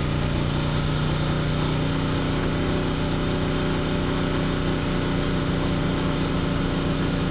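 Champion 4000-watt open-frame inverter generator running steadily under load, with an even, unchanging engine note while it powers an electric fireplace and lights.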